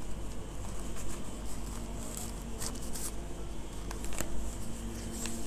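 Packaging being handled by gloved hands: soft rustling of an earbud pouch and paper insert cards, with scattered light clicks and taps.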